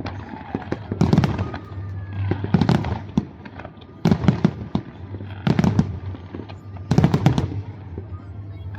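Large aerial fireworks display: shells bursting in loud booms about every second and a half, each followed by crackling, with faint whistling glides between them.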